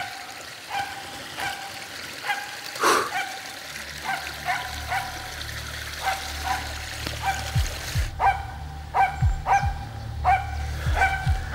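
A tree-barking hunting dog, a red spitz-type dog, barking steadily at about two barks a second to hold a game bird up in a tree. The barks get louder about eight seconds in. There is one sharp snap about three seconds in.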